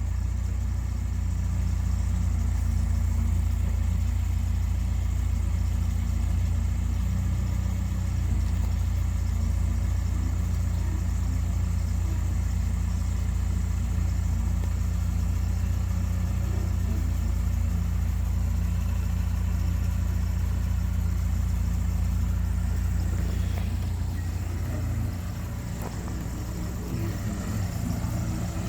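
Dresser bulldozer's diesel engine running steadily under light load during fine grading, a low, even drone that eases off a little near the end.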